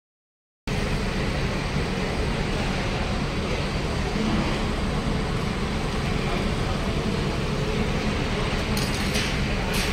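After a brief gap of silence, a steady low rumble of parked buses' diesel engines idling.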